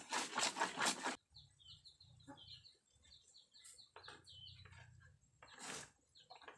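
Kitchen utensils clattering and scraping for about a second at the start and again briefly near the end. In between, a bird chirps in quick runs of short, high, falling notes.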